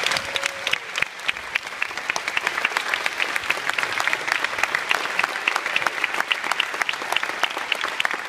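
Audience applauding: many people clapping steadily, with some claps close by standing out sharply.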